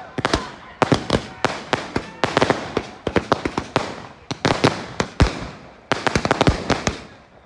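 Fireworks going off: a rapid, irregular run of sharp bangs and crackles coming in quick clusters, several a second, thinning out near the end.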